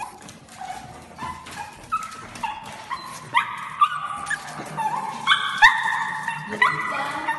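A pug giving a rapid string of high-pitched yips and whines, the calls coming louder and longer from about halfway through.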